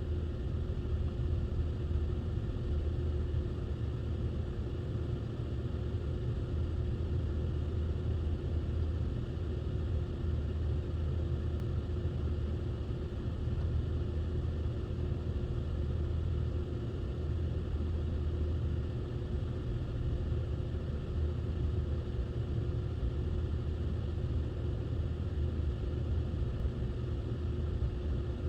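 A car running steadily, a low even rumble with a faint hum and no changes in pitch or level.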